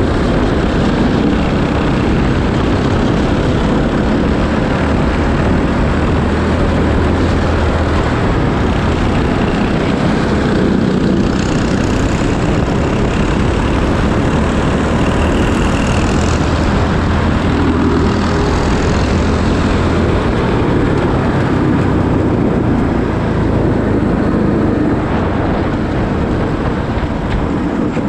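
Racing kart's engine running hard on track, heard close up from the driver's seat, its note shifting as the kart goes through the corners.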